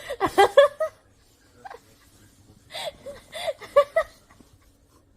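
Short bursts of high-pitched vocal sounds in two spells: a quick run of rising-and-falling pulses in the first second, then another run about three seconds in.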